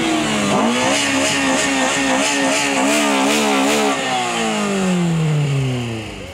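Car engine revving: its pitch wavers quickly up and down as the throttle is worked, then falls steadily near the end as the revs drop away.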